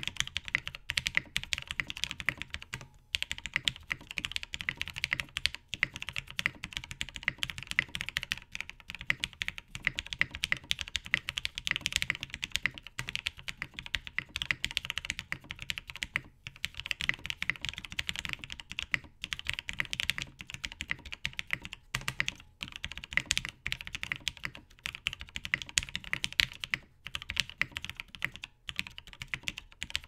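Steady fast typing on a FreeBird TKL mechanical keyboard, top-mounted with a POM plate and PBT keycaps, fitted with lubed and filmed Gateron Ink Black V2 linear switches. The keystrokes run as a dense, continuous clatter broken by a few brief pauses.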